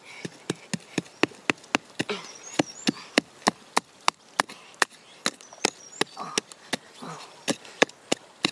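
A small flat metal digging blade striking and scraping into dry, stony soil in quick, even strokes, about three a second.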